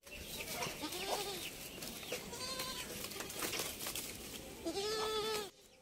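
Kodi goat kids bleating: a short call about a second in, a few fainter calls after it, and a longer, louder bleat near the end.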